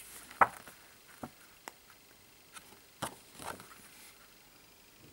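A stack of stiff jacket-sized photo cards being handled on a wooden table: a sharp tap about half a second in, a few lighter clicks, and cards sliding against each other around three seconds in.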